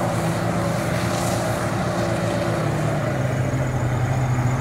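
Four-wheel-drive SUV's engine driving hard off-road across a dirt slope, a steady drone that drops to a slightly lower, smoother note about three seconds in.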